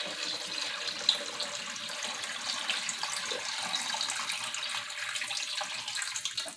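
Water running into a kitchen sink and down the drain, a steady splashing hiss that cuts off abruptly at the very end.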